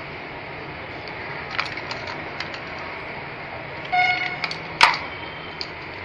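Scattered sharp clicks and taps of small machine parts being handled, with a short high squeak about four seconds in and a louder click just after it, over a steady hiss.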